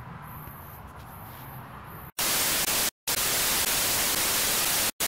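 About two seconds of faint room tone, then a sudden, loud TV-static sound effect: an even white-noise hiss, cut twice by brief dropouts.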